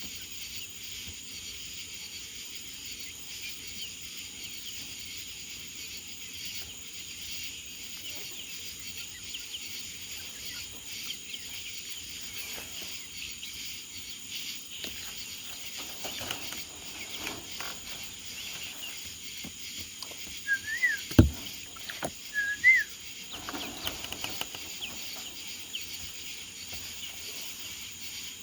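Steady chorus of crickets. Some two-thirds of the way in, a few short, sharp chirping calls from the flock of birds stand out above it.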